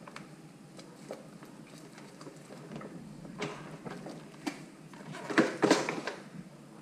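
Handling of an electric hand mixer and spatula in a bowl of cream cheese frosting: scattered light knocks and scrapes, with a louder cluster of knocks about five and a half seconds in.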